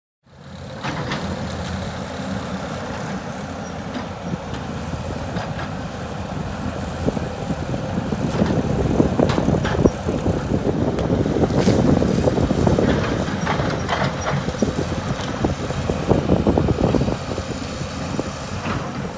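Heavy diesel construction machinery running, louder for a stretch in the middle, with scattered knocks and clanks.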